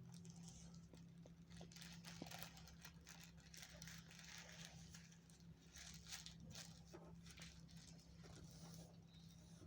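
Faint rustling and crinkling of tissue paper being folded by hand, in short irregular strokes.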